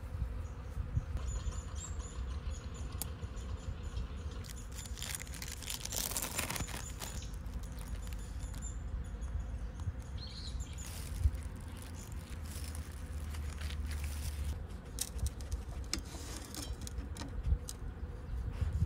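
Insects chirping, with a steady high-pitched tone through the first half, over a low rumble and scattered clicks and taps.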